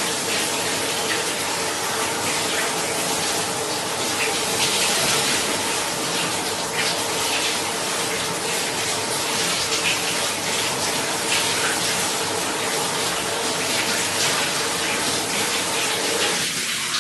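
Shower water running steadily, a continuous spray and splash with a faint hum underneath. The lower, fuller part of the sound falls away just before the end.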